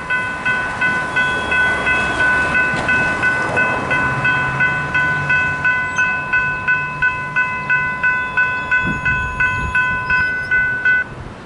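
Railroad grade-crossing warning bell ringing rapidly, about three strikes a second, while the crossing gates come down, signalling an approaching train. The ringing cuts off about eleven seconds in, once the gates are down.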